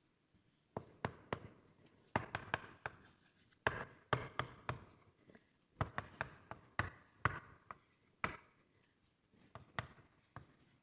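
Chalk writing on a blackboard: a run of quick taps and short scratching strokes in clusters, with brief pauses between them, as a formula is written out.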